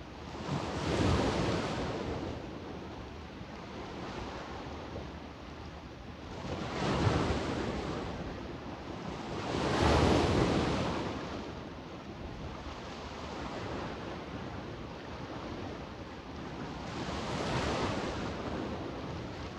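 Adriatic Sea waves washing in on the beach, rising and falling in slow surges; four waves come in, the two in the middle loudest.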